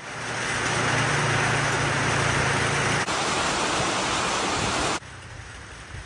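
Heavy rain pouring down steadily, which cuts off abruptly about five seconds in, leaving a much quieter hiss.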